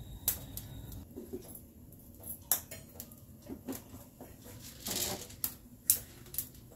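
Irregular light clicks and knocks of plastic kitchen storage jars being picked up and handled.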